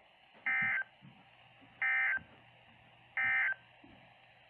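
NOAA Weather Radio SAME end-of-message signal: three identical short bursts of two-tone digital data, each about a third of a second long and about a second and a third apart, marking the end of a broadcast warning.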